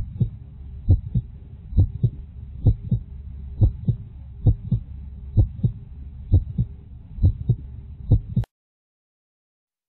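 A human heartbeat as heard through a stethoscope: a regular lub-dub, about nine double thumps a little under a second apart, over a low steady rumble. It cuts off suddenly about eight and a half seconds in.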